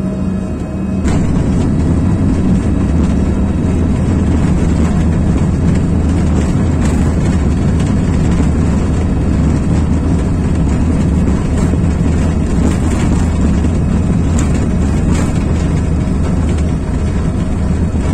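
Cabin noise of a jet airliner landing: a steady roar of engines and rushing air that jumps up sharply about a second in and stays loud while the plane rolls along the runway.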